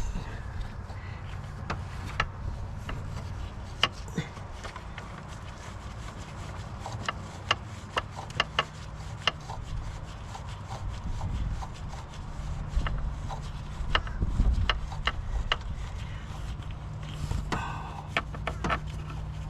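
Scattered metallic clicks and taps of hand tools working on the car's engine, over a steady low rumble.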